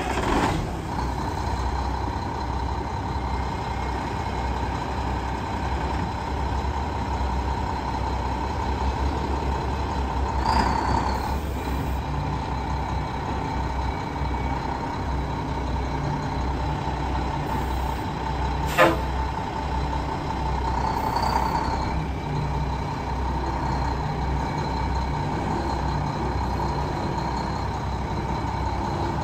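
1994 Mack CH613 semi truck's diesel engine idling steadily, with two brief hisses about a third and two-thirds of the way through and a single sharp click between them.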